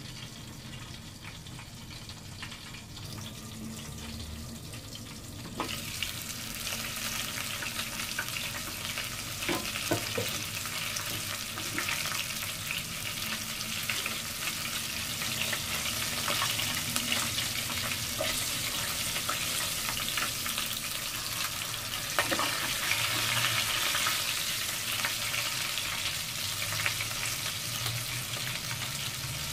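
Chicken pieces deep-frying in oil in a pot, a steady sizzle that gets louder about six seconds in, with a few light clicks.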